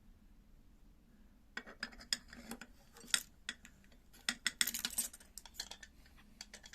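Small metal door-handle parts clinking and clicking irregularly as a square spindle is fitted into a new door latch. It begins about a second and a half in and goes on until near the end.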